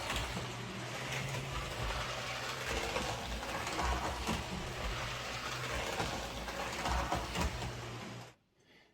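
Hornby OO gauge Class A1 model steam locomotive running round a model railway layout: a steady whirr of its motor and gears with scattered clicks of wheels on the track, stopping suddenly near the end. It runs through without derailing.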